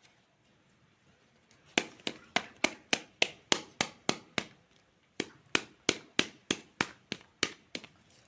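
Plastic toy fruit being cut with a toy knife: a run of sharp clicks or chops, about three a second, then a short pause and a second run.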